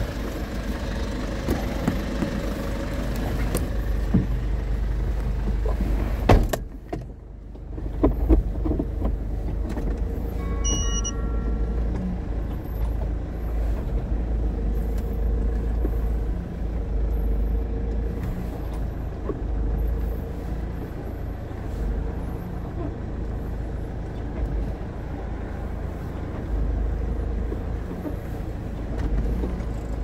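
Small cab-over truck's engine running, heard from inside the cab, with a steady low rumble. The driver's door is pulled shut about six seconds in with a single sharp thud, and a short electronic chime sounds a few seconds later.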